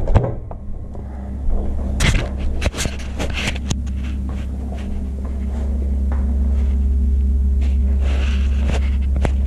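Knocks and clunks from a scooter engine being handled and set down on a workbench, clustered between about two and three and a half seconds in, over a steady low hum.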